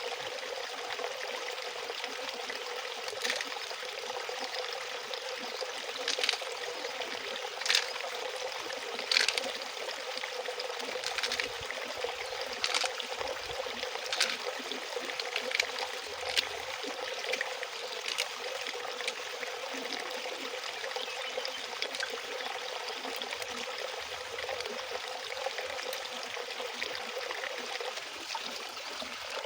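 Water running and trickling steadily, with scattered sharp clicks and knocks, a few of them louder, between about 3 and 19 seconds in.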